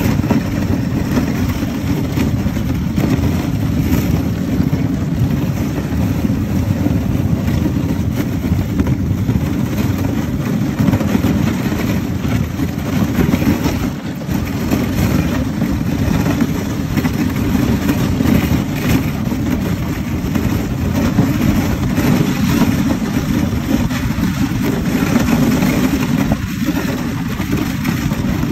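Steady low rumble of wind buffeting the microphone on a moving husky-drawn sled.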